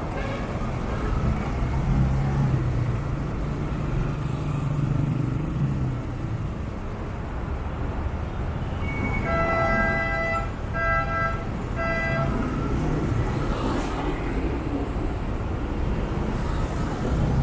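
Heavy, slow-moving city traffic heard from a motorcycle: a low engine hum and road noise. About halfway through, a vehicle horn beeps three short times in quick succession.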